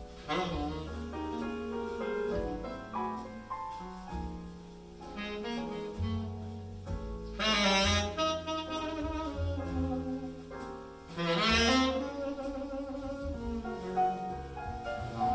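Instrumental jazz-style music led by saxophone, with a bass line underneath, played back through Yamaha NS-BP200 bookshelf speakers. The saxophone swells louder about eight seconds in and again about twelve seconds in.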